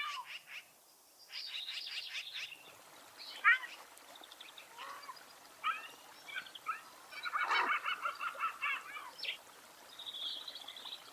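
Birds calling and singing: bursts of quick chirps, rapid trills and short rising whistles, busiest about a second and a half in and again around seven to nine seconds in.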